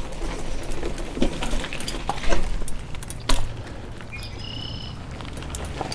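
Bicycle rolling over a rough dirt trail: scattered knocks and rattles over a steady low rumble. A brief high whistling tone comes about four seconds in.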